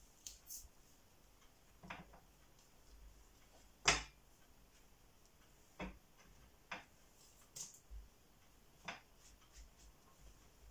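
Scattered light knocks and clicks of kitchen things being handled on a worktop, about ten in all, with the loudest knock about four seconds in.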